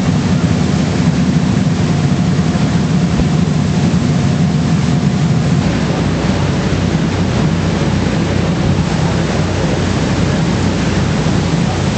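Sightseeing cruise boat's engine running steadily, a low drone under an even rush of noise from the moving boat.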